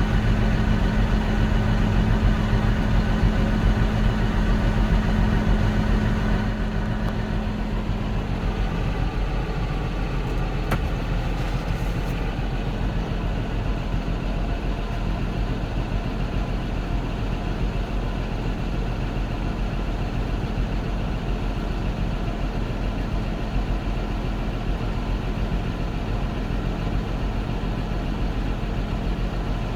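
Combine harvester engine running steadily. About six seconds in, its deep note drops away and it settles quieter.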